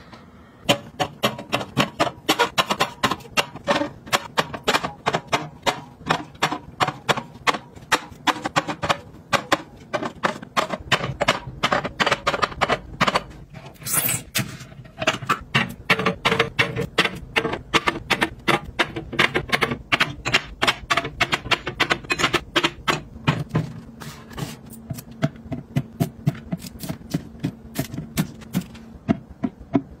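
Quick, repeated clinks and taps as glass juice bottles, small plastic milk bottles and yogurt cups are set down and pushed into place on refrigerator shelves, several knocks a second.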